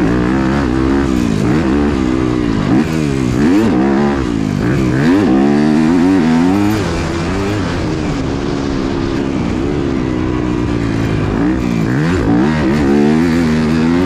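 Yamaha YZ250F motocross bike's four-stroke single-cylinder engine ridden hard around a dirt track, revving up and backing off again and again, its pitch climbing and dropping with each burst of throttle.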